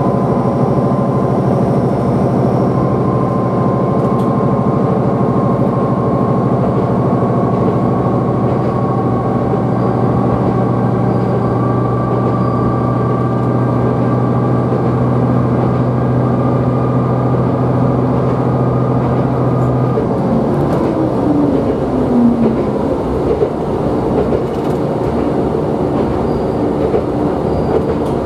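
Diesel railcar heard from inside the cabin, running under power with a steady engine drone whose pitch creeps slowly upward. About twenty seconds in the engine note drops away with a brief falling tone, leaving the rumble of wheels on the rails.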